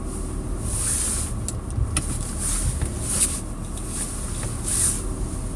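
Steady low rumble of a car heard from inside the cabin while it stands still in traffic, with a few light clicks and short swells of hiss.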